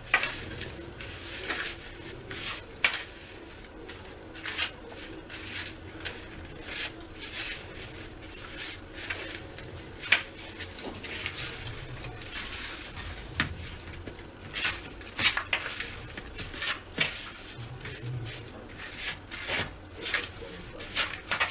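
Hand mixing a crumbly milk-powder and powdered-sugar dough in a steel plate: irregular clinks and taps against the steel with soft scraping, one sharper clink about ten seconds in.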